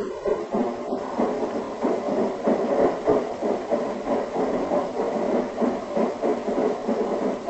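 Road and engine noise of a car driving, heard from inside, with a steady rhythmic pulsing of a few beats a second.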